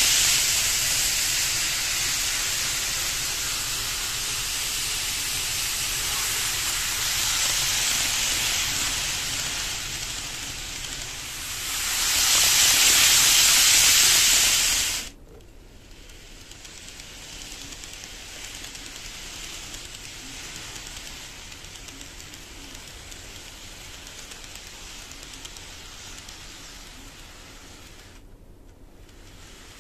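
N-gauge model Shinkansen (KATO 500 series) running along the track close by: a steady rushing hiss of wheels on rail and motor, loudest just before the middle, then dropping off sharply to a much fainter hiss that carries on.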